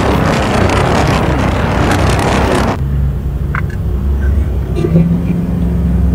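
Cars driving at speed on a highway: loud, rushing road noise from a moving vehicle. About three seconds in it cuts sharply to a quieter, lower engine and traffic hum.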